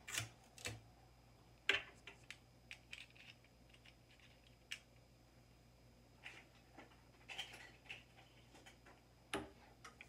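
Scattered light clicks and knocks from a wooden cabinet door and plastic child-lock parts being handled, with a sharper knock just under two seconds in and a cluster of clicks later on.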